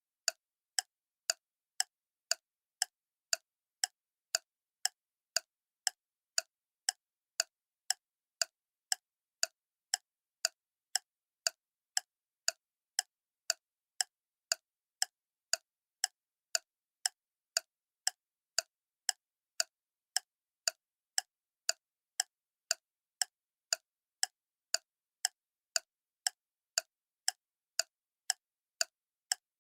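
Clock ticking steadily, about two sharp ticks a second with silence between them.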